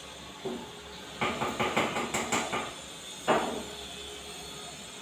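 Metal pots and utensils clattering at a kitchen gas stove as a pot of water is set on to heat: a knock, a quick run of sharp taps, then one loud metal clank that rings briefly.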